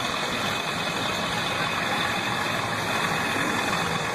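Turbocharged drag-race car engine running steadily, with no revving.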